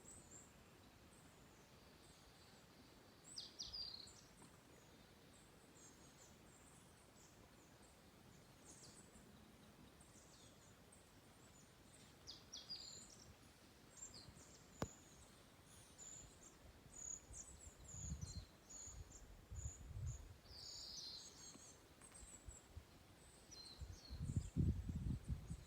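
Wild songbirds calling and singing faintly: many short, high chirps and trills. Low muffled rumbles come in near the end.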